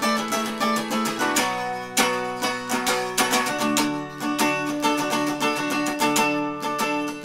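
Instrumental passage of a rock song: an electric guitar played with a pick in fast, even strokes, ringing chords and notes, with no vocals.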